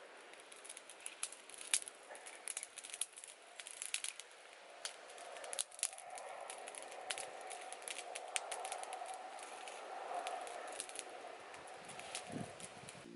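Small stick fire crackling, with sharp irregular pops and snaps as the twigs are pushed into it. A soft steady rushing joins in from about six seconds in.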